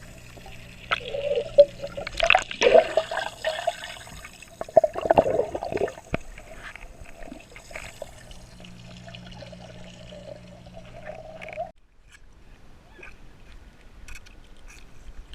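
Water trickling and splashing, over a steady low hum. The sound drops away abruptly about three-quarters of the way through.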